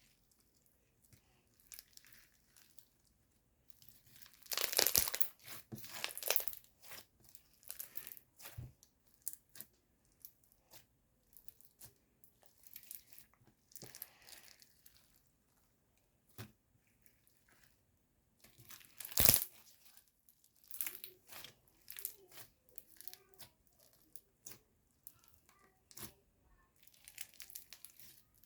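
White crunchy slime being squeezed, stretched and pressed by hand, giving irregular crackles and pops in clusters, with two louder runs of crackling near the start and about two-thirds of the way in.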